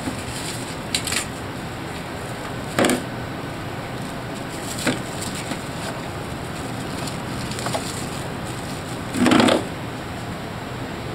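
A cat rummaging among frozen food packages in an open freezer: four short rustles and knocks over a steady hiss, the loudest and longest one, about half a second, near the end.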